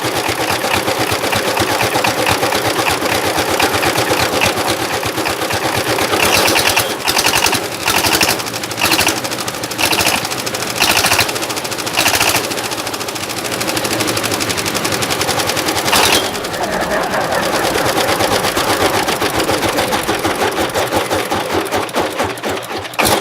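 Combustion engine run hard, its firing pulses coming in a rapid, rattling stream, with short bursts of harder revving from about six to sixteen seconds in.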